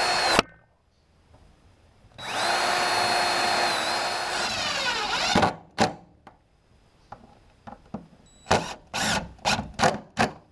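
Power drill driving screws to mount door hinges: one steady run of about three seconds that winds down in pitch as the trigger is released, then a quick series of short bursts near the end.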